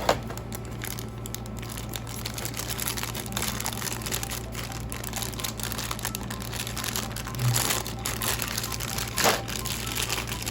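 Plastic packaging crinkling and rustling as it is handled, with a few louder crackles near the start, about seven seconds in and about nine seconds in.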